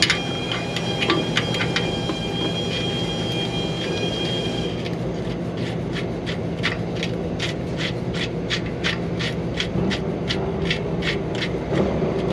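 A steady hum, with a thin high whine that cuts off suddenly about five seconds in. After that comes a regular run of sharp ticks, about three a second.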